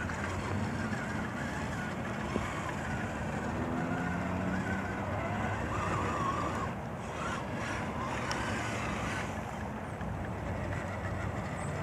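Redcat Gen 8 RC crawler driving through shallow flood water: its electric motor and drivetrain whine, rising and falling with the throttle, over a steady wash of splashing and running water.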